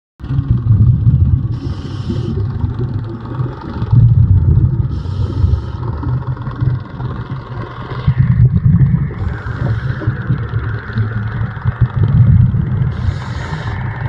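Underwater camera recording: a heavy low rumble of water moving around the camera housing, with a scuba diver's regulator hissing in short breaths about every three to four seconds.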